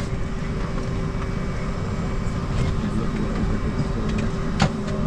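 Steady low rumble and hum of an airliner's cabin ventilation at the boarding door, with a single sharp knock near the end.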